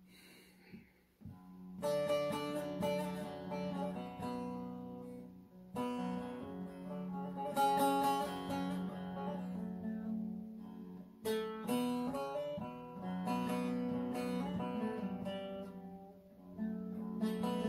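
Bağlama (saz), the Turkish long-necked lute, played solo: plucked melodic phrases of a few seconds each over a steady low drone, an instrumental introduction with no singing yet.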